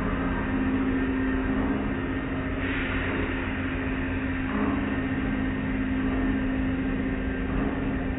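Automatic tunnel car wash heard from inside the car: the steady hum of the wash machinery over a constant hiss of water spray and cloth brush strips swishing over the car. A brief louder, brighter hiss comes about three seconds in.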